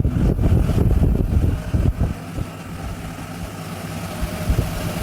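Electric table fan running, with a steady motor hum and a rumbling rush of air.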